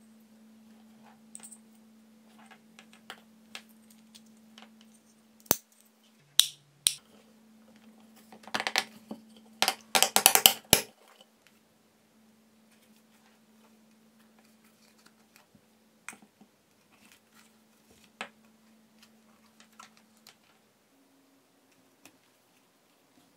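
Hard plastic clicks and snaps as a rocker switch and its 3D-printed housing are handled and pressed into place. There is a dense run of loud clicks around the middle, then only a few light taps.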